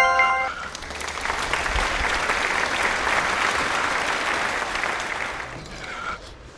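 A brief chime, then about five seconds of applause that swells and fades away near the end: an applause sound effect edited in after the intro.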